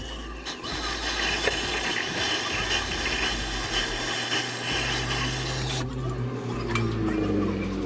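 Rasping, scraping sound of a hand tool worked against a part for about five seconds, stopping near the end.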